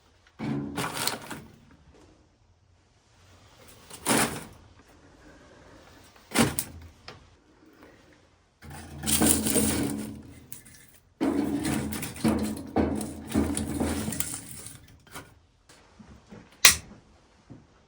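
A series of clunks and scraping noises as objects are handled in a small room, some bursts lasting a second or more, with a single sharp click near the end.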